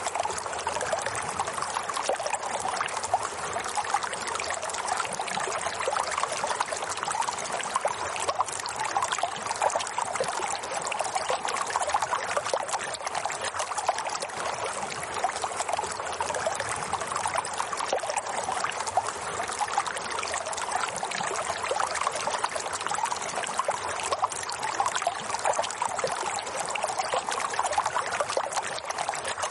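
Running water trickling and splashing steadily, like a small stream flowing over stones, with no change or break.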